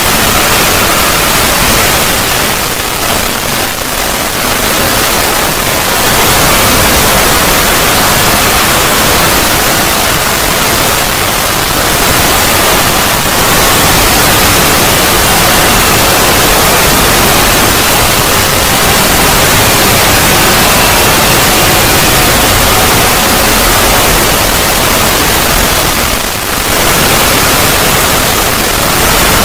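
Loud, harsh static-like noise filling every pitch at once, a steady roar with faint tones buried in it and brief dips about three seconds in and near the end.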